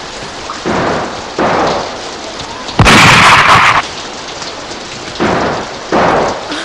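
Storm sound: a steady rain hiss broken by five sudden thunder cracks, the loudest about three seconds in.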